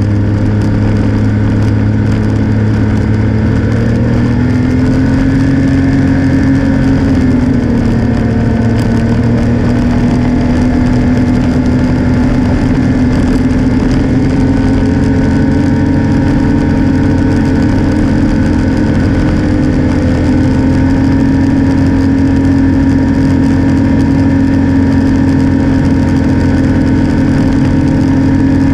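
Snowmobile engine running steadily at cruising speed, its pitch rising a little about five seconds in and settling back a couple of seconds later.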